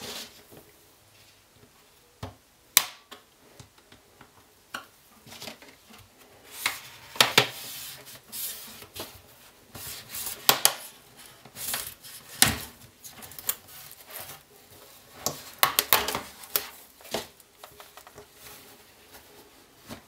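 Clips of a laptop's one-piece bottom panel clicking and snapping loose one after another as it is pried off, with scraping and rubbing between the sharp clicks.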